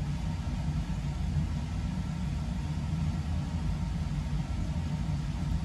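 Steady low mechanical hum of background machinery, unchanging throughout.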